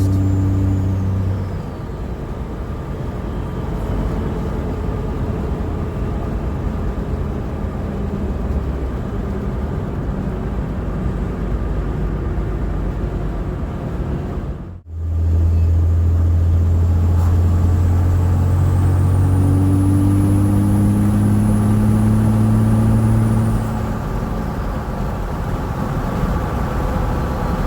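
Road noise inside the cab of a 2006 Dodge Ram 3500 riding on aggressive Cooper STT Pro mud-terrain tires at light throttle: a steady rushing noise with a low drone, the 5.9L Cummins turbo-diesel running underneath. After a brief dropout about halfway through, a louder low drone with a faint high whine rises for several seconds and then eases off.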